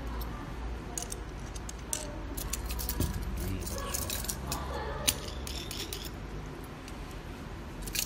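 Small metal parts clicking and clinking as a stage light's aluminium hook clamp, its bolt and a quick-lock omega bracket with quarter-turn fasteners are handled and fitted together.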